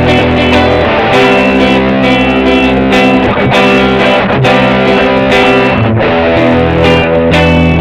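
Electric guitar loop played back by an Electro-Harmonix Nano Looper 360 pedal: strummed chords and ringing notes repeating in a steady rhythm.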